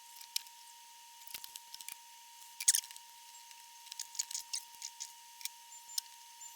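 Scattered small clicks and ticks of hand tools and components being worked on an amplifier chassis during recapping, with a louder cluster of sharp clicks a little under three seconds in. A faint steady high whine runs underneath.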